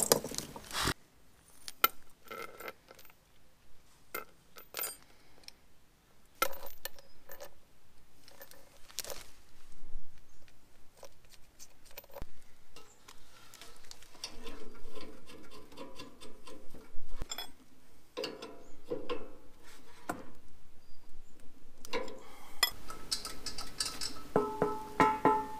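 Scattered metallic clicks, clinks and taps as a screwdriver and metal gas fittings are handled while a regulator and hose are fitted to a barbecue, with a few short ringing clinks near the end.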